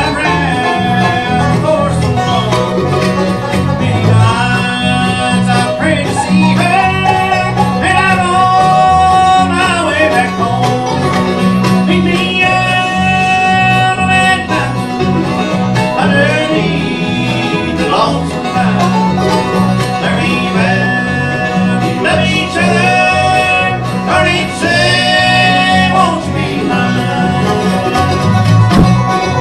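A live band playing a country-style song with singing over acoustic string instruments and a steady beat throughout.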